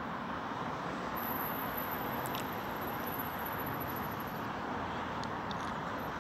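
Steady outdoor background noise of distant road traffic, an even hum with no single event standing out.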